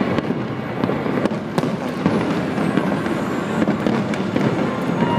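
Aerial fireworks going off: many sharp bangs in quick succession over a continuous wash of noise.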